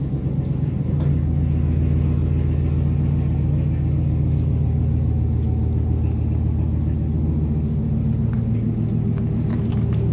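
Truck engine idling steadily with a low drone. The truck has a persistent cylinder 2 misfire, which the owner suspects comes from lost compression after something let go inside the engine.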